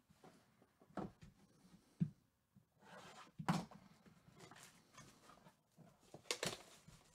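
Hands handling and opening a shrink-wrapped cardboard trading-card hobby box: scattered faint taps, knocks and rustles, the sharpest about a second, two seconds and three and a half seconds in, and a cluster near the end.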